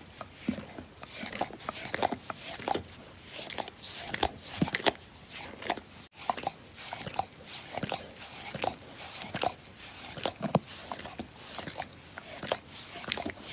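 A dog licking: an irregular run of wet tongue smacks and slurps, a few a second, with a brief break about halfway through.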